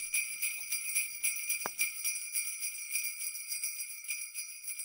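Jingle bells shaking steadily in a rapid, bright jingle, starting to fade near the end, with one short click about one and a half seconds in.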